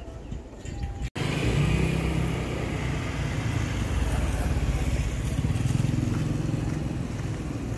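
A motor vehicle engine running close by, starting abruptly about a second in, loudest through the middle and easing off near the end.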